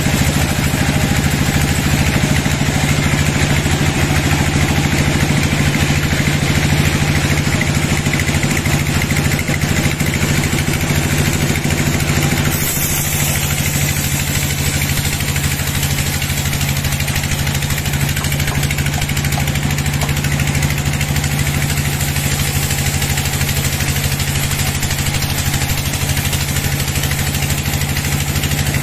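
Horizontal band sawmill running steadily, its blade cutting lengthwise through a teak log: a continuous machine drone with cutting hiss. The sound shifts abruptly about halfway through.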